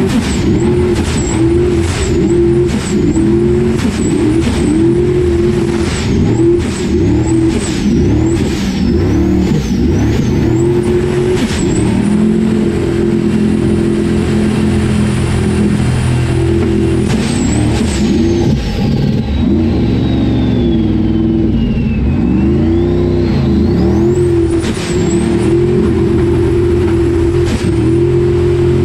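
Formula Offroad buggy's engine revving hard and easing off over and over, heard from inside the cockpit, with a thin high whine that follows the revs. About halfway through the revs are held for a few seconds, then fall away in a long drop in pitch and climb back up.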